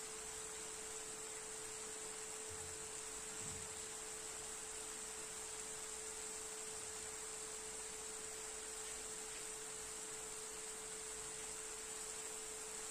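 Steady hum: one constant mid-pitched tone and a high whine over an even hiss, with a couple of faint low knocks about three seconds in.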